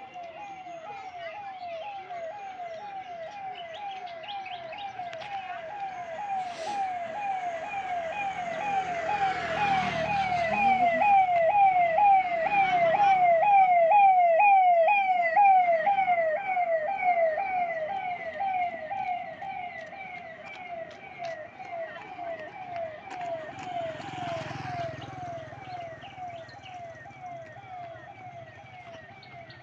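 An emergency vehicle's siren with fast rising sweeps, about two a second. It grows louder toward the middle and then fades as the vehicle passes, with low road-vehicle rumble around the loudest part and again near the end.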